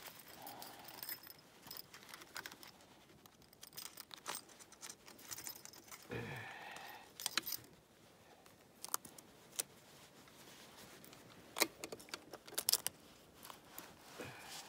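Gloved hands twisting and working wire around a tree trunk to fasten a plastic marten trap box: scattered sharp clicks, scrapes and light metallic jingling.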